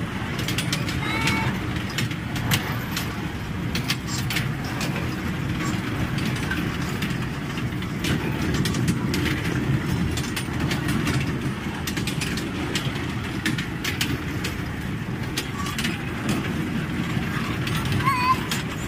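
Kiddie-ride mini train running on its track: a steady low rumble with frequent clicks and rattles from its wheels and the couplings between its cars.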